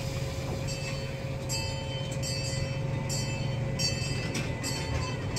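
Miniature ride-on train cars running along their track: a steady low rumble, with repeated short high-pitched clinks and squeaks from the moving cars.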